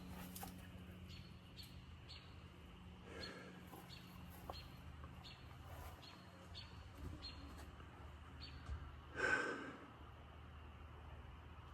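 Faint short chirps repeating about twice a second, with one short, louder squawk from a hen about nine seconds in.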